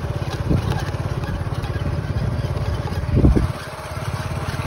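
Small motorcycle engine running while being ridden, a fast, steady low pulsing; the engine note eases off about three and a half seconds in.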